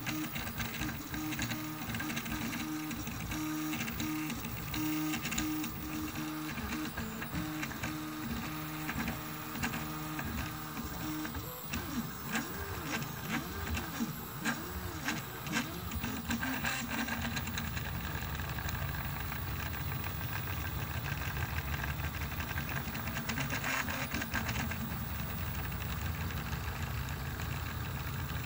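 Rebel II HD 3D printer printing at 70 mm/s, its stepper motors whining in short on-off tones as the print head shuttles back and forth. About halfway through, the pitch swoops up and down in arcs for a few seconds. It then settles into a steadier low hum.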